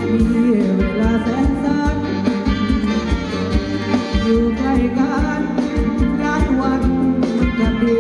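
Live band playing a Thai ramwong dance song, with a steady drum beat under the melody.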